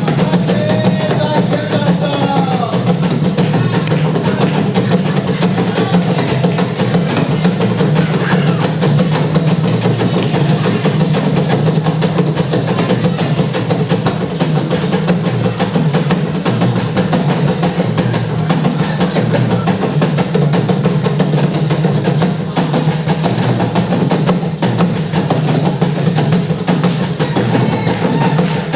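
Music carried by dense, steady drumming and percussion, with a strong low drum line throughout.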